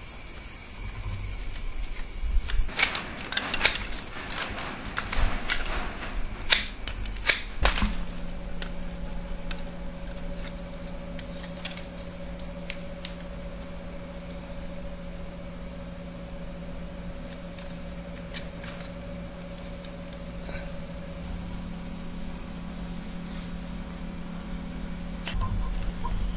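Split bamboo strips of a woven eel trap clicking and snapping sharply in a quick run for about five seconds as they are bent and tucked into the weave, over a steady high hiss. After that a steady low hum carries on.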